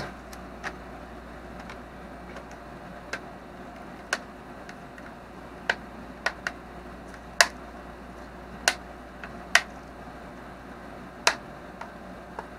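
Sharp, isolated plastic clicks at irregular intervals, about ten in all, as the back cover of a Samsung Galaxy Tab A is pressed on and its clips snap into place.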